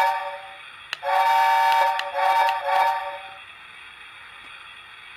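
Lionel LionChief Hogwarts Express locomotive's electronic steam whistle sounding through its onboard speaker: one blast ending about half a second in, a longer blast, then two short ones.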